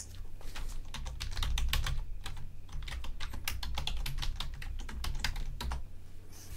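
Computer keyboard typing: a quick, irregular run of key clicks as a username and password are entered, over a low steady hum.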